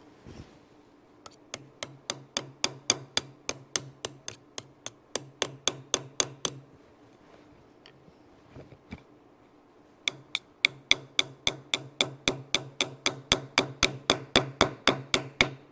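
Small hammer tapping a tight-fitting metal pin into a hole in a homemade hose clamp tool. Quick, light, ringing blows come about four a second, in two runs of several seconds with a pause between them.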